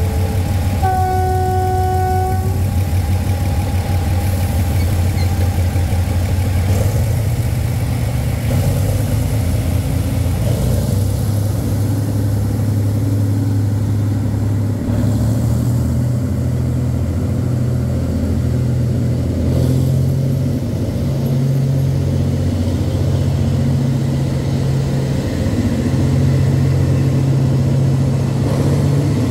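Diesel locomotive sounds one horn blast about a second in, then its engine runs as the passenger train pulls out and the coaches roll past. The engine pitch steps up a couple of times as the throttle is opened.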